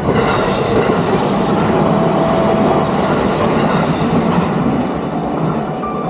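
A JR East E233 series electric train passes close by over a level crossing, its wheels clattering on the rails. The noise is loud and steady, then eases slightly near the end as the train clears the crossing.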